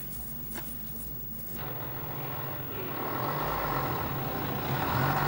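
A few light clicks at first, then from about one and a half seconds in a diesel truck engine running steadily, growing louder about three seconds in.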